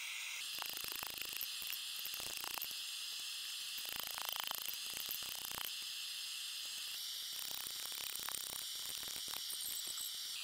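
Steady high hiss with faint, scattered light clicks and scrapes of a hot steel rod being shifted and bent against an anvil.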